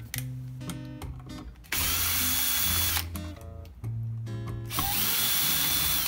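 Cordless drill-driver backing out the mounting screws of a wall light switch, in two runs of about a second each, its motor whine rising and then holding steady. Acoustic guitar music plays underneath.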